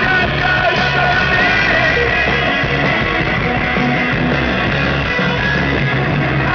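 Live rock band playing, with singing, recorded from the festival crowd.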